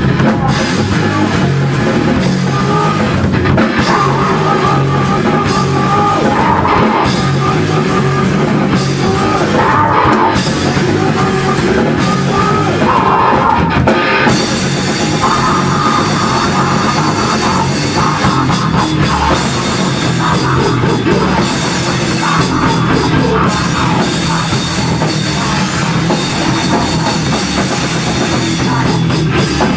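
Live rock band playing loudly and without a break: heavy, driving rock with a drum kit, filling the whole sound.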